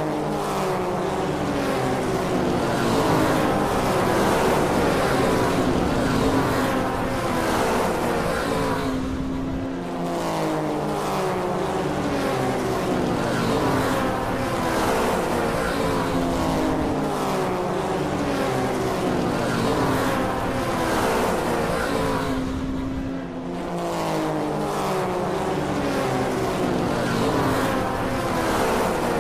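Race car engine sound, loud and continuous, its pitch sweeping up and down over and over as if revving through gears, breaking off briefly twice.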